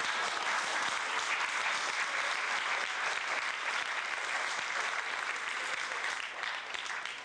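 Audience applauding, a dense steady clapping that begins to fade near the end.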